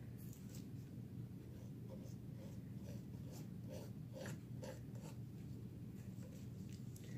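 Paint being worked onto a canvas: soft, short scraping strokes at an irregular pace, about one or two a second, over a steady low hum.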